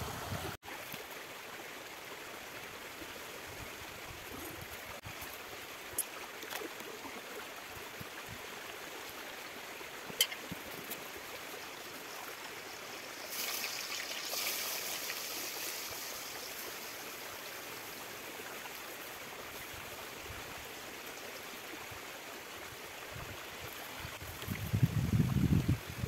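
Steady rush of flowing river water, with a few light clicks and a brief louder hiss about halfway through.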